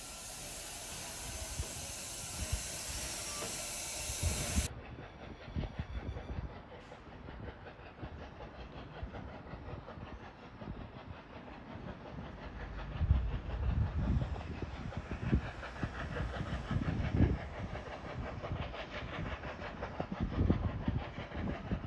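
Steam locomotive 6029, a NSWGR AD60-class Beyer-Garratt, hissing steam, a steady hiss that cuts off abruptly about five seconds in. After that, a quieter stretch with irregular low rumbling from a distant train.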